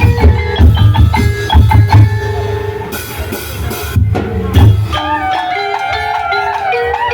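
Live percussion-led music: deep drums beating fast with wood-block knocks. About five seconds in the drums thin out, leaving a wavering melody over lighter percussion.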